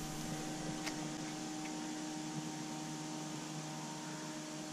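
Steady faint hum of a few even tones over a soft hiss, with a faint tick about a second in.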